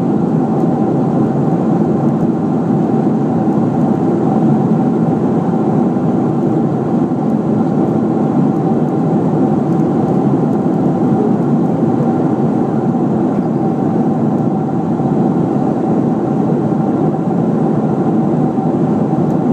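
Steady cabin noise of a Boeing 737-600 in cruise, heard from inside the cabin over the wing: the even drone of its CFM56 turbofan engines and the rush of air past the fuselage, with a faint steady hum running through it.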